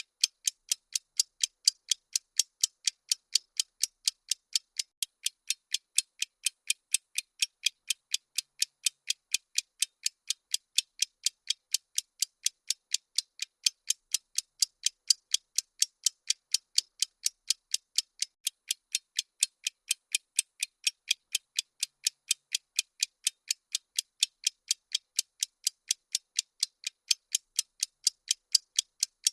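Countdown timer ticking sound effect: thin, high-pitched clock ticks repeating steadily at about three a second.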